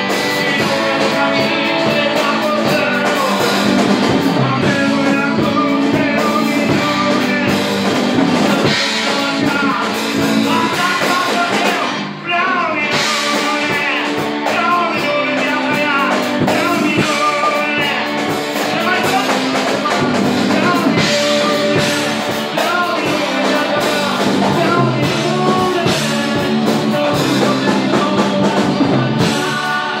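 A small rock band playing live together: strummed acoustic guitar, keyboard, bass and drum kit, with a man singing the lead vocal into a microphone.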